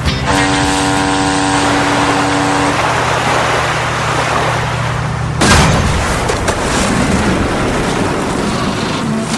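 Cargo ship's horn sounds one long steady blast over a low engine drone. About five and a half seconds in comes a loud crash as the ship collides, followed by a rumbling, crunching noise as it breaks up.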